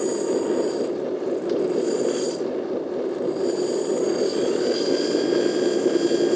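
Electric hydraulic pump of a radio-controlled hydraulic crane truck running steadily as the crane arm is worked: a dense whirring with a thin high whine on top. The whine drops out for about two seconds starting near one second in, then comes back.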